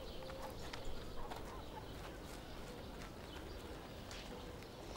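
Faint rural outdoor ambience: birds calling now and then over a soft background hush, with light footsteps.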